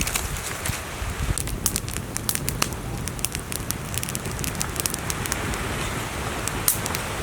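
Open cooking fire crackling: many irregular sharp pops over a steady hiss.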